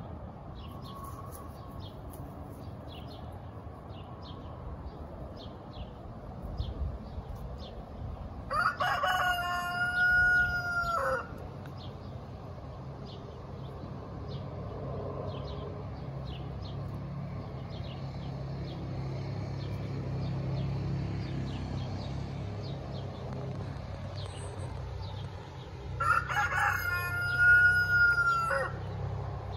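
A rooster crows twice, each crow lasting about three seconds, the first about eight seconds in and the second near the end, over a steady low hum in the background.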